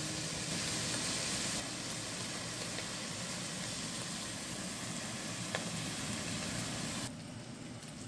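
Taco meat frying in a pan on a portable gas camp stove: a steady sizzle. About seven seconds in, it drops suddenly to a quieter hiss.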